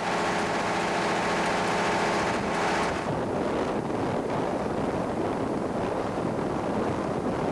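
A moving road vehicle heard from inside: its engine drones under steady wind and road noise. The engine's hum is clearest for the first three seconds, after which the rush of wind and road takes over.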